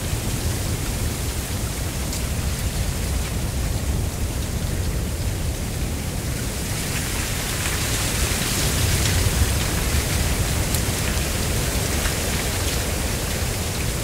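Mistral wind gusting through a dense stand of dry giant reed (canne de Provence, Arundo donax), a steady rustling hiss over a low rumble. The hiss swells about halfway through, and a few faint ticks come through.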